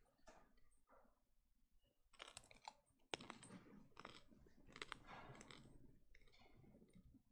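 Near silence, broken by faint scattered clicks and soft rustling and handling noises, thickest in the middle few seconds.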